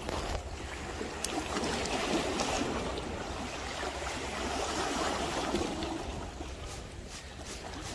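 Small waves lapping and splashing against the rocks of a seawall, a steady rushing wash over a low rumble. A quick run of faint ticks comes near the end.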